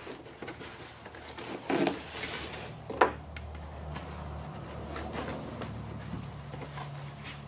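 Plastic wrapping rustling and polystyrene packaging being handled as a foam wing is lifted out of its box, with one sharp knock about three seconds in.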